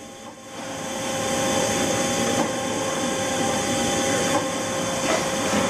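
Haas SL-10T CNC turning center running with a steady mechanical whir and hum. It builds up over about the first second, then holds level.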